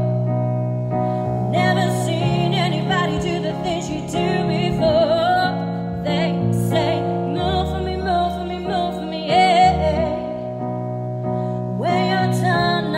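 A woman singing into a microphone, her voice wavering with vibrato, over a piano backing track.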